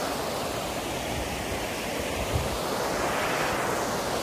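Small waterfall on a river, water rushing over it in a steady, even noise.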